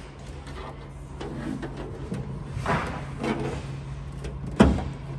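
Hands handling a wiring cable as it is pushed through a gap at a ute's tailgate: light rustling and scraping, with one sharp knock about four and a half seconds in, over a steady low hum.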